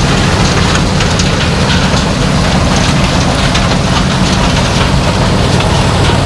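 Farm machinery engine running steadily at a constant speed, with a dense crackling hiss over it.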